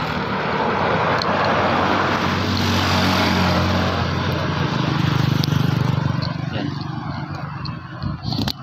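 A motor vehicle passing close by on the road, its engine sound building to a peak about halfway through and then fading away. A sharp knock near the end.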